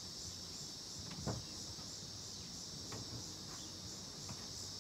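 Steady high-pitched insect chirring, with one soft thud about a second in.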